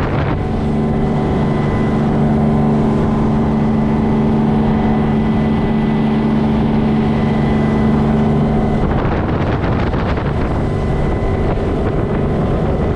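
A sportfishing charter boat's engine running steadily at cruising speed, a constant drone under the rush of water and wind.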